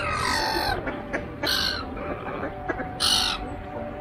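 Flock of black-headed gulls and mallard ducks calling, with harsh squawks about three times.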